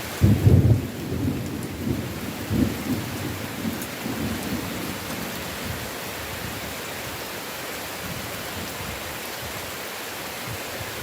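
A clap of thunder breaks suddenly just after the start and rolls on in fading rumbles for about five seconds, over steady rain.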